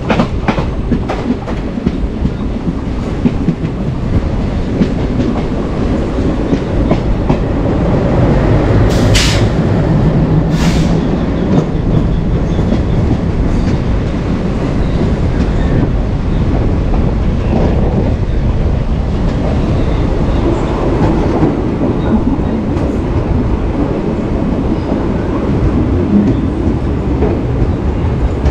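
Passenger train of ICF coaches running along the track: a steady rumble of wheels on rails with light clickety-clack. Two brief, sharp, hissing noises stand out about nine and eleven seconds in.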